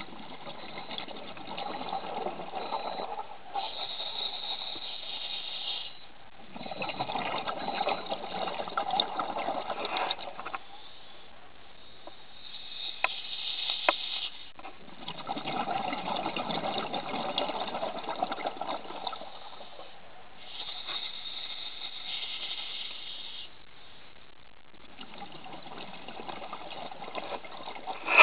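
A scuba diver breathing through a regulator underwater, about seven seconds per breath: a high, even hiss on each inhalation, then a longer gush of exhaled bubbles. There are four bubble exhalations and three inhalations.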